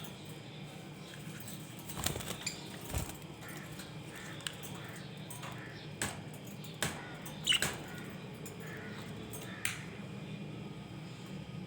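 Budgerigars giving short, scattered chirps and sharp calls, a few loud ones standing out, over a steady low hum.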